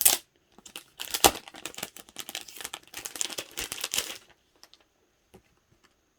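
Packaging crinkling as it is handled: a sharp crackle at the start, then a dense crackling for about three seconds from about a second in, fading to a few light clicks.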